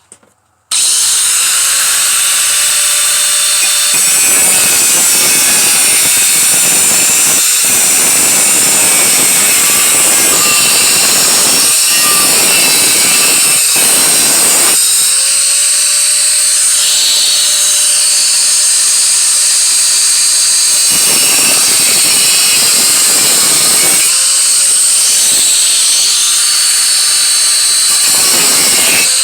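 Power tool cutting sheet metal: a loud, steady high whine that starts suddenly about a second in, its tone shifting several times as the cut goes on.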